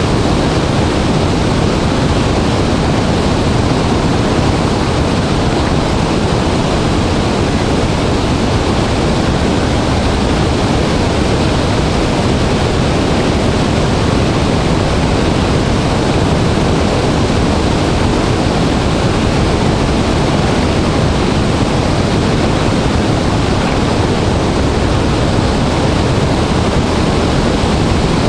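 Large waterfall in high flow: a loud, steady roar of falling water with no breaks, heaviest in the low end.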